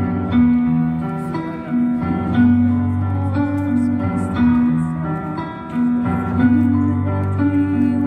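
Slow instrumental music played through outdoor loudspeakers: held chords over a bass line, the notes changing about once a second.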